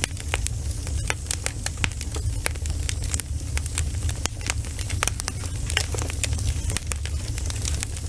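Wood fire burning: logs crackling and popping in irregular sharp snaps over a steady low rumble of the flames.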